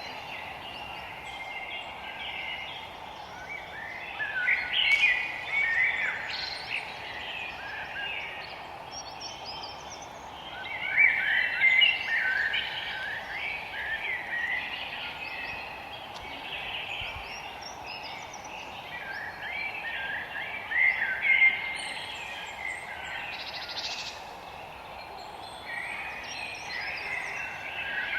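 Songbirds singing in a forest: bouts of quick chirping, warbling phrases come and go every few seconds over a steady low hiss of background noise.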